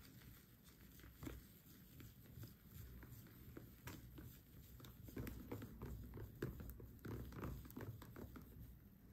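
A plastic straw stirring thick whipped topping in a paper cup: faint, irregular scrapes, squishes and small clicks, busier about halfway through as fingers work the cream off the straw.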